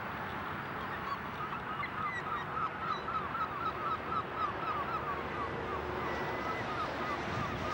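A flock of waterfowl calling: many short honking calls follow one another in quick succession over a steady background rush.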